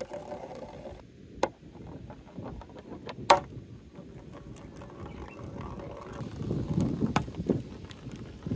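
A ball rolling down a run of plastic rain-gutter sections, a steady low rattling rumble with sharp knocks as it drops from one gutter into the next, several times, the loudest about a third of the way in.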